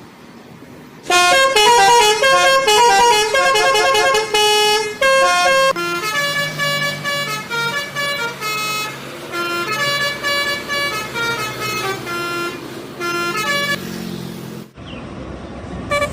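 Bus telolet horn, a multi-tone musical horn, playing a quick melody of changing notes. It starts about a second in and is loudest for the first few seconds, then carries on more quietly over a running engine. Near the end it gives way to road noise.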